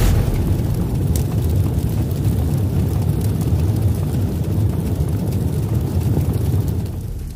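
Intro sound effect: a loud, steady low rumble like a jet or blast roar, fading out near the end.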